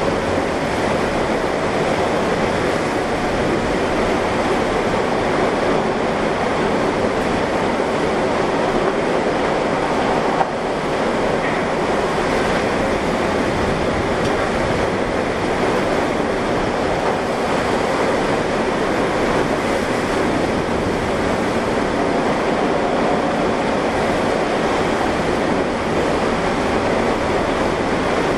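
Tornado winds and rain: a loud, steady rushing noise with no let-up, and one brief knock about ten seconds in.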